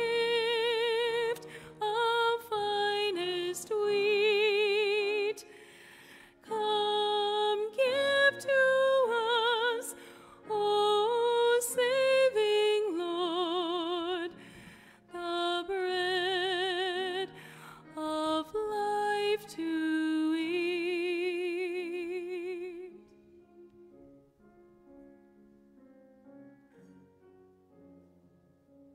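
A solo woman's voice singing a slow hymn in phrases with a wide vibrato, over soft piano accompaniment. The singing stops about 23 seconds in and the piano plays on quietly.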